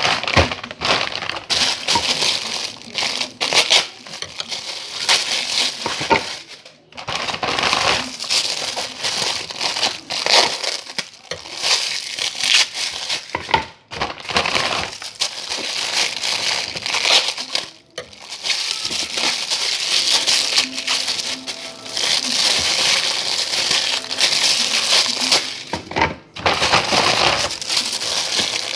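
Plastic bag of frozen chicken burger patties crinkling and rustling close to the microphone as the patties are handled and pulled out, in long stretches broken by a few short pauses.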